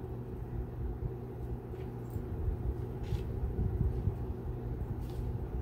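Steady low background hum with a few faint soft taps.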